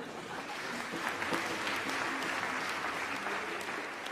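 An audience applauding: a steady clapping, used as a comedy sound effect, with faint crowd voices underneath.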